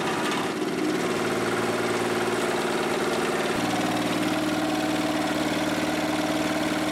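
MC2700 portable petrol generator's engine running steadily, loaded by a plugged-in electric fan heater; its tone shifts slightly about three and a half seconds in.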